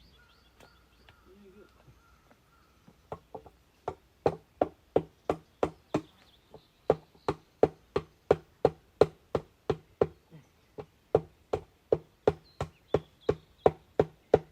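A tool striking wood in a steady run of sharp knocks, about three a second, starting about three seconds in, as wood is worked during the repair of an old wooden beehive.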